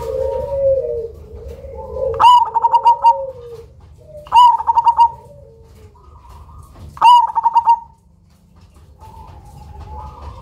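Cemani (black) zebra dove, a perkutut, singing: three loud phrases, each a sharp opening note followed by a quick run of rolling coos. Softer, lower cooing runs underneath in the first two seconds and again near the end.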